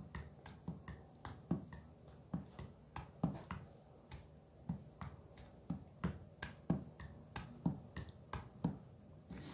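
A run of small, sharp clicks, irregularly spaced at about three a second.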